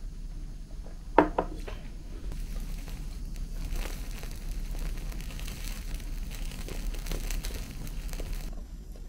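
A small ceramic sake cup set down with a single clink about a second in, then crackling and crinkling for several seconds as a strip of dried squid is toasted over a butane camp stove's flame, stopping suddenly near the end.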